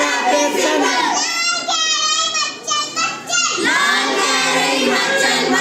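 A class of teenage students singing a nursery poem together, repeating it after a small child's voice that leads them.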